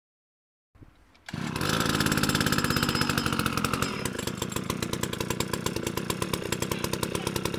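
Small strimmer engine fitted to an RC car, on its first run, starts sounding about a second in with a fast, even buzz of firing pulses. It runs at high revs, then eases to a slightly lower speed about four seconds in.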